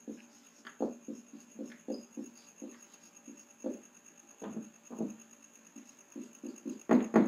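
Marker pen writing on a whiteboard: a run of short, irregular strokes as letters are written, with a couple of louder strokes about seven seconds in.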